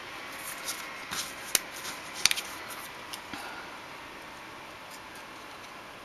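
Fingers handling small pieces of punched cardstock on a tabletop: a few short, crisp paper clicks and rustles, the sharpest about a second and a half and two seconds in, over faint steady room hiss.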